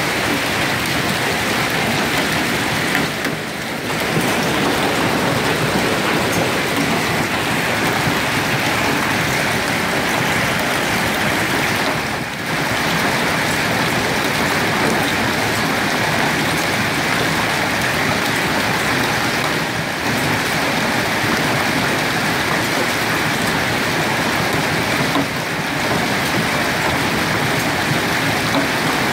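Hailstorm: dense, steady hail pelting down on cars, with short lulls about 3, 12, 20 and 25 seconds in.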